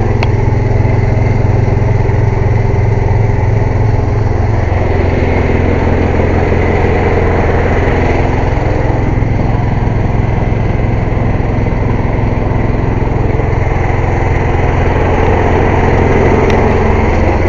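Air compressor running loudly and steadily, a continuous engine-like drone with no change in speed.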